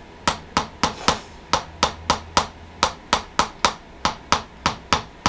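Handheld chiropractic adjusting instrument clicking in a steady series of sharp taps, about three a second, loosening the joint at the base of the pelvis before the adjustment.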